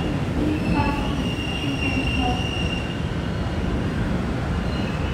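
Train running slowly along the station tracks with a steady rumble, and high metallic wheel squeal that comes and goes, loudest about a second to three seconds in.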